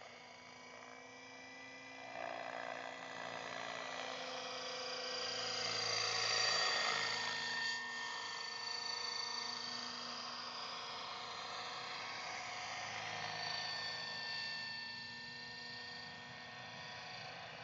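Align T-Rex 600 radio-controlled helicopter flying, a steady high whine from its motor and rotors that drifts slightly in pitch. It grows louder to a peak about six seconds in, then drops back as it moves off.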